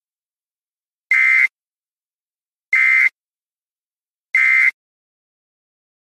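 Weather-warning web page's electronic alert sound: three short, buzzy, high beeps about a second and a half apart, with clean silence between them.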